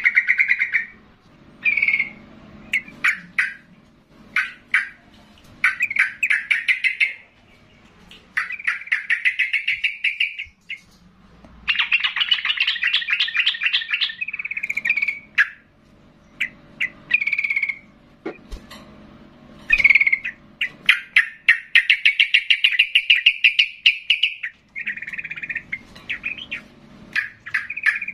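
Yellow-vented bulbul (trucukan) in full, hard song: loud phrases of fast chattering, bubbling notes lasting one to three seconds each, with short pauses between them. A faint low hum sits underneath.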